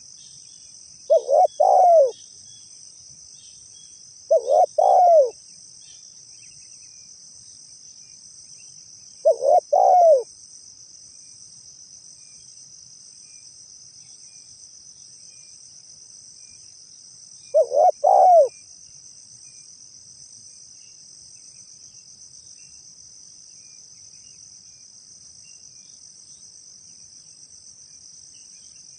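Spotted dove (tekukur) cooing: four short phrases of two or three low notes each, spaced irregularly a few seconds apart. A steady high insect trill runs underneath.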